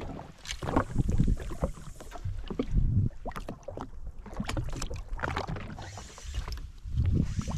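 Water slapping and lapping against the hull of a drifting jet ski, in uneven swells, with scattered sharp clicks and knocks.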